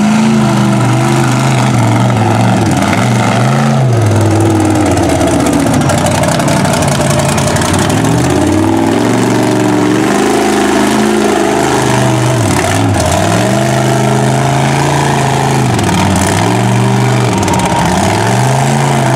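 Lifted mud truck's engine revving up and down repeatedly under load as it churns through a deep mud pit on tractor-tread tyres.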